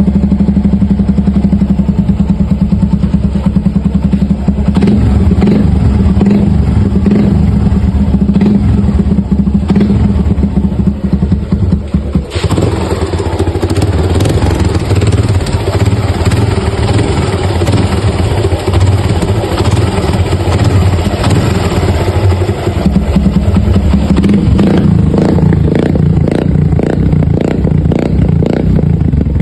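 Motorcycle engine running with a rhythmic knocking clatter, the sound of piston slap from a worn piston and cylinder. The engine note changes abruptly about twelve seconds in.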